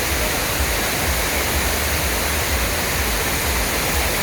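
Steady rush of pumped water pouring and splashing through a funnel water slide, with an uneven low rumble of wind on the microphone beneath it.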